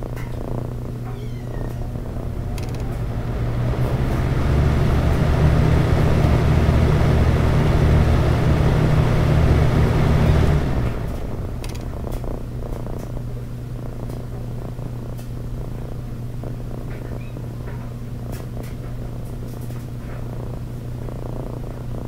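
Early-1980s Frigid EA 203 box fan starting on high: the motor and blades spin up over about two seconds into a loud low hum with a rush of air, run steadily for about six seconds, then cut off and wind down quickly, its motor unoiled for several years. A steady low drone continues underneath throughout.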